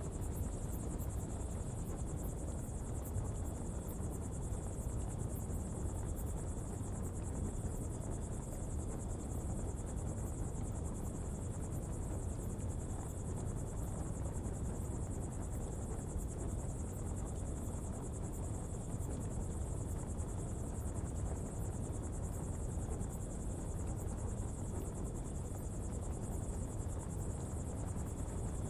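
Coal pottery fire burning with a steady low rumble and faint crackles, under a continuous high chirring of insects.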